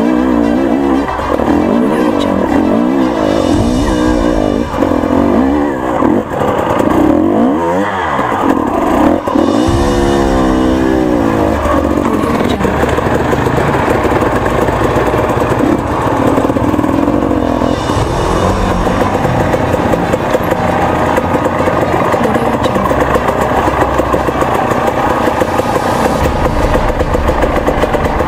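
KTM two-stroke fuel-injected (TPI) enduro motorcycle engine revving up and down hard over the first dozen seconds, then running more steadily.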